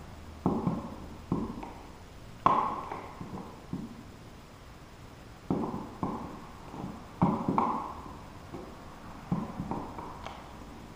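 Plastic outlet cover plate being handled and fitted against the wall: a series of sharp clicks and taps, coming in short clusters every second or two.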